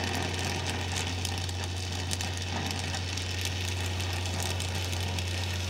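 Welding machine humming steadily, with a faint crackling over it.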